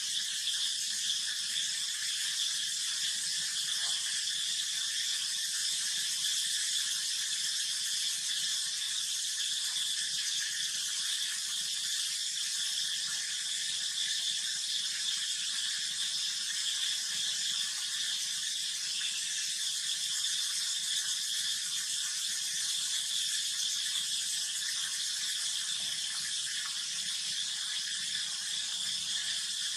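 Steady, high-pitched drone of an insect chorus, unbroken throughout.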